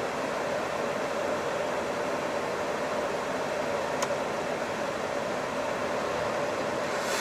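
Steady hiss and hum inside a Hino Profia truck's cab, from the air-conditioning fan and the running truck together. A single sharp click comes about four seconds in.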